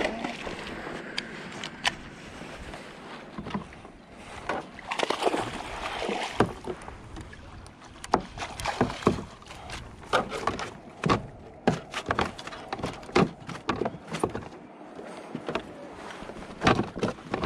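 Hooked largemouth bass splashing at the surface beside a kayak as it is reeled in, then a run of irregular clicks and knocks as it is brought to the net.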